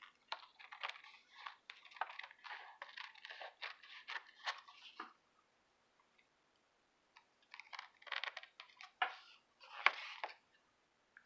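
Scissors cutting through paper, a crackly run of snips and paper handling in two stretches with a short pause between them.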